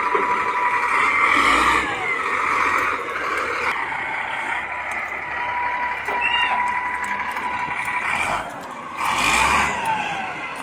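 XCMG wheel loader working its raised bucket over a dump truck, its diesel engine running with a steady high whine. Two surges of hiss come through, about a second and a half in and again near the end.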